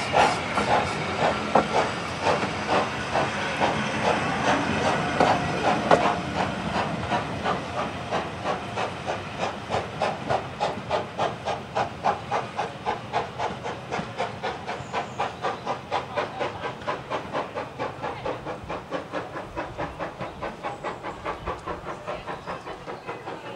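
Steam locomotive hauling a train of coaches away, its exhaust chuffing in a steady beat with hiss. The beat quickens as the train gets under way and fades as it draws off.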